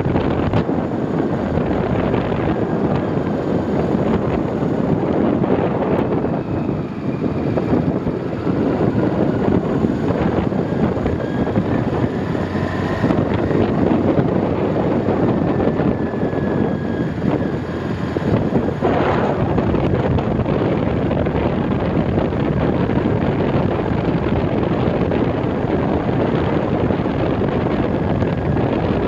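Wind rushing over the microphone of a moving vehicle, with its engine running underneath. There are faint rising and falling engine tones in the middle.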